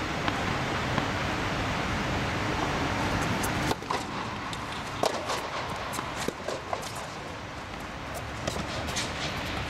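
Tennis ball bounced twice on the court, then hit by a racket on a serve with a sharp pop a little before four seconds in, followed by several quicker pops of the ball bouncing and being struck in the rally, over a steady rushing background noise.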